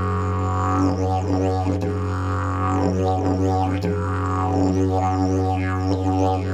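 Fiberglass triple-slide didgeridoo playing a steady low drone, with rhythmic sweeping overtones shaped by the player's mouth about once a second.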